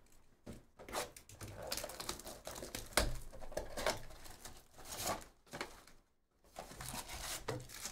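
Cardboard trading-card box being handled and its flap opened: a busy run of taps, clicks and crinkling rustles, with a brief pause about six seconds in.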